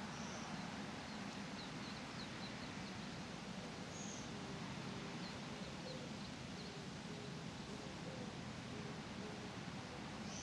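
Small birds chirping faintly in short high calls scattered through, over a steady hiss of outdoor ambience with leaves rustling.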